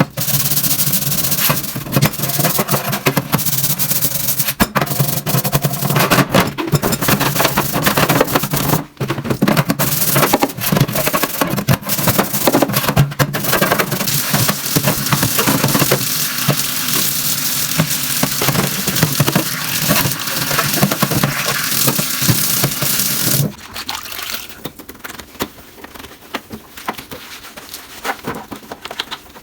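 Vigorous scrubbing of greasy kitchen surfaces: a dense run of short rubbing and scraping strokes. About 23 seconds in it drops abruptly to quieter scrubbing.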